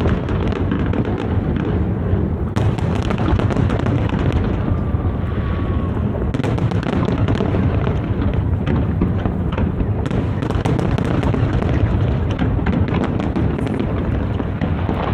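Large aerial fireworks display going off without let-up: a dense, continuous rumble of overlapping shell bursts, shot through with many sharp cracks and crackles.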